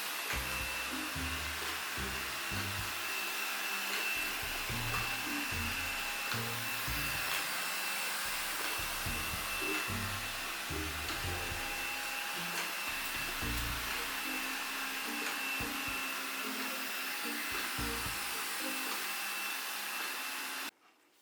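Ecovacs Deebot 600 robot vacuum running at max suction in its spot-cleaning mode: a steady rushing noise with a thin high whine, cutting off abruptly near the end. Background music plays underneath.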